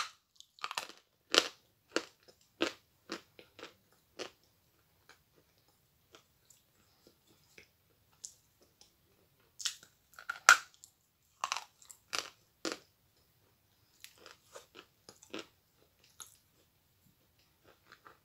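Hard edible chalk crunching as it is bitten off and chewed. Sharp crunches come in clusters, densest at the start and again about ten to thirteen seconds in, with quieter chewing crunches between.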